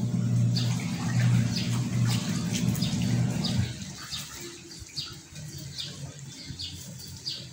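Short, quick bird chirps repeating about once or twice a second, over a steady low hum that fades out a little past halfway.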